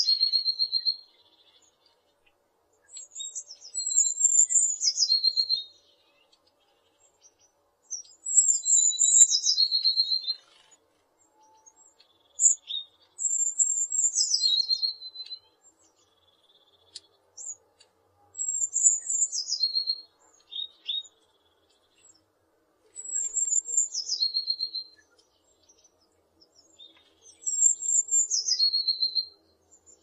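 Eurasian blue tit singing, repeating the same short phrase every four to five seconds: a few thin, high notes stepping down in pitch, then a fast trill lower down.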